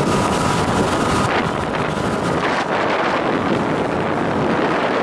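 Sessa motorboat running at high speed, with heavy wind noise buffeting the microphone over the engine and hull noise. A faint steady whine fades out about a second in.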